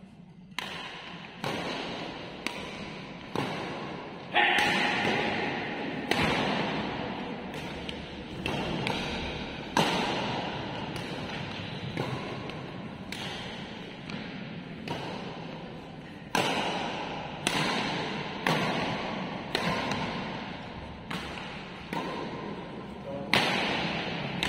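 A fast badminton doubles rally: rackets striking the shuttlecock with sharp cracks about once a second, each ringing on in the hall's echo.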